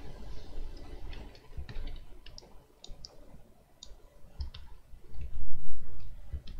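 Scattered single computer mouse clicks. A louder low rumble on the microphone comes about five seconds in.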